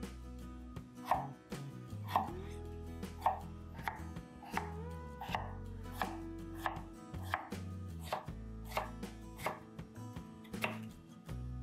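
Kitchen knife chopping food on a cutting board in a run of single chops, roughly one every half second to second, over soft background music.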